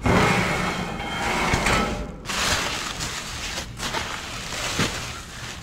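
Metal dumpster door scraping as it is pulled open, followed by plastic trash bags rustling and crinkling, with a few sharp clicks.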